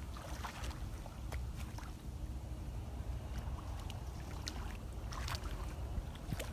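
Shallow muddy water splashing and sloshing as children wade and stir it with their hands, a scatter of short splashes. Underneath, a steady fluttering low rumble of wind on the microphone.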